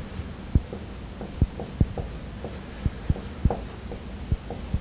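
Dry-erase marker writing on a whiteboard: irregular sharp taps of the tip against the board, with faint scratchy squeaks of the strokes.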